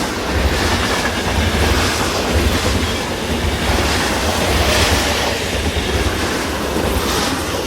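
Stock train sound effect: a full-size train running on the rails with a steady low rumble, swelling about halfway through and starting to fade out at the end.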